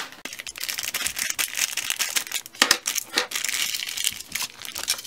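Crinkling and crackling of a DIY candy kit's packaging being opened, as a white plastic tray holding foil packets is slid out of its printed package, with many small irregular clicks and rustles.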